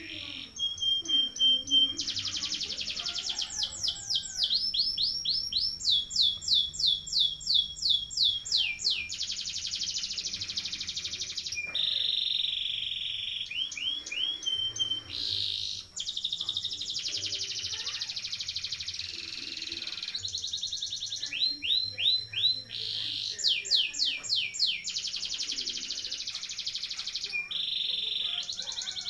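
Domestic canary singing a long rolling song: fast trills of rapidly repeated notes, switching abruptly between sweeping rolls and steadier buzzy trills every second or two.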